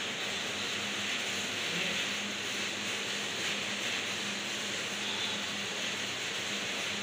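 Large-format outdoor banner printer with KM512i printheads running mid-print, its print carriage sweeping back and forth over the banner, giving a steady mechanical whir and hiss.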